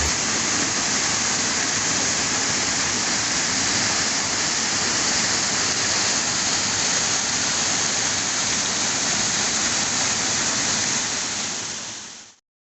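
Steady rushing of water falling over a small waterfall, fading out near the end.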